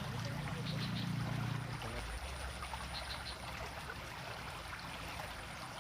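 Steady rush of water flowing along a small ditch, with a low hum during roughly the first two seconds and a few faint high chirps.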